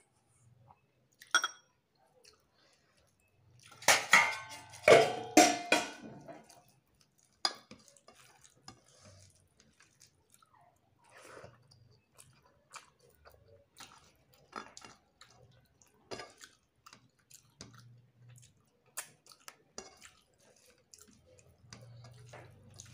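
A person eating by hand from a plate: a short burst of dishes clattering about four seconds in, the loudest sound, then scattered soft clicks of fingers working rice on the plate and quiet chewing.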